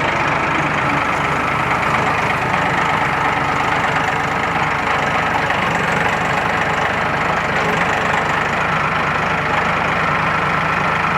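An engine idling steadily and loudly, with no revving.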